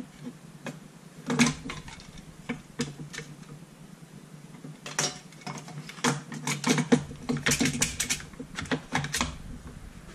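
Clicks and knocks of a chainsaw's plastic handle housing and parts being handled and fitted together by hand: a short cluster about a second in, then a longer run of quick clicks and taps from about five to nine seconds.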